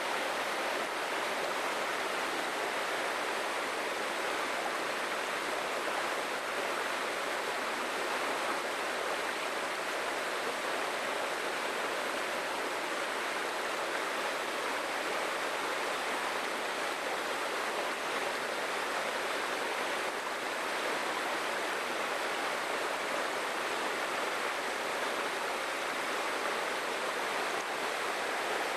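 Waterfall in a jungle stream, water falling and rushing steadily with an even hiss and no breaks.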